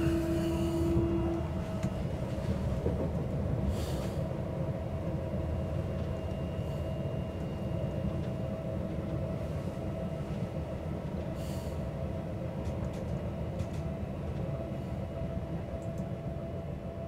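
Passenger train running, heard from inside the carriage: a steady low rumble with a faint steady hum. A whining tone stops about a second in, and there are a few brief rattles.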